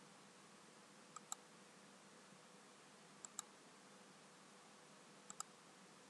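Three sharp double clicks, evenly spaced about two seconds apart, over a faint steady hiss and hum.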